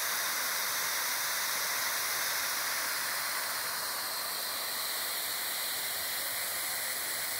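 Steady hiss of a dome-shaped fountain's many fine water jets spraying and falling into its basin, a little quieter after about four seconds.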